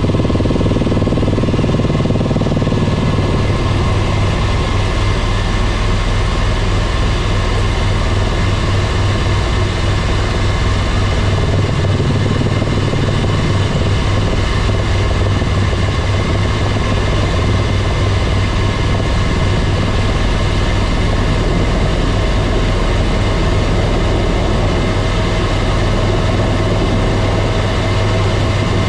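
Tour helicopter in flight, heard from inside the cabin: a loud, steady drone of rotor and turbine with a strong low hum.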